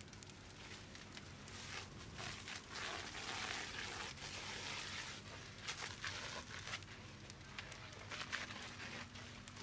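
Compressed air foam hose spraying onto a burning timber shed: a spray hiss that swells for a few seconds early on and then eases, with sharp crackles from the burning wood throughout.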